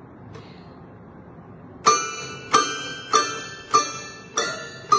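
A child's toy piano being banged on by a baby: the same bright note struck about six times at a steady pace starting a couple of seconds in, each note ringing out briefly.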